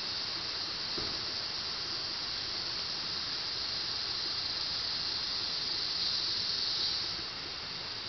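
Insect chorus: a steady, high-pitched hiss that swells about six seconds in and eases off near the end.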